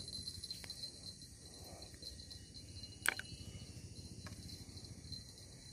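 Steady high-pitched chorus of insects, crickets among them, from the vegetation along a muddy riverbank, with a single sharp click about three seconds in.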